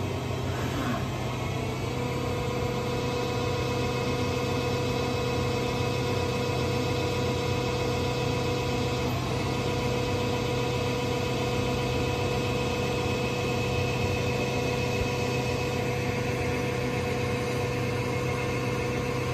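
Okuma Genos L3000-E CNC lathe running with its spindle spinning a chuck-held steel workpiece: a steady machine hum, joined about two seconds in by a steady whine that holds on.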